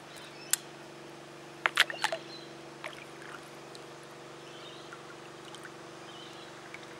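Sharp water splashes and knocks from a small Australian bass, hooked on a surface lure, thrashing as it is brought alongside a kayak. There is one splash about half a second in and a quick cluster around two seconds in, over a steady low hum.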